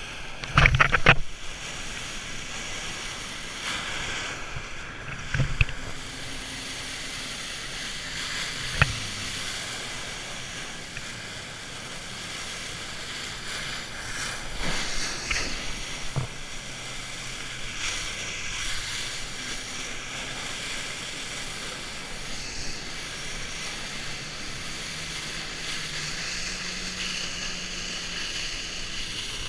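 Personal watercraft engine running with its pitch rising and falling, under rushing water spray and wind buffeting an action camera's microphone. A few sharp knocks: a cluster in the first second, one around five seconds in and one around nine seconds.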